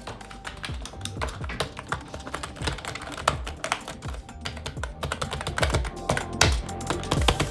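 Fast typing on an Ant Esports gaming keyboard: a dense, uneven run of key clicks.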